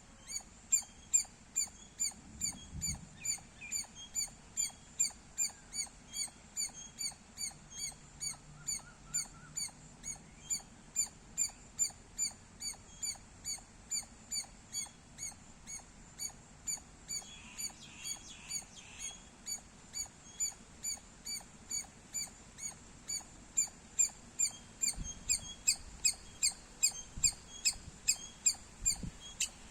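Squirrel chirping in a long, rapid run of short, sharp, high-pitched chirps, about two a second, growing louder near the end.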